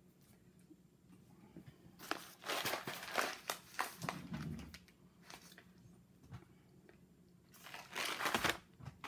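Bag of Dunkin' Donuts ground coffee crinkling as it is handled, in two spells: a longer one starting about two seconds in and a shorter one near the end.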